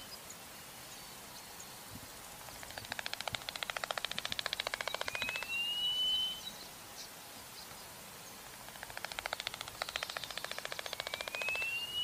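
Eastern clapper lark's flight display, heard twice: a rapid rattle of wing claps that grows louder, closing with a single drawn-out whistle that rises in pitch.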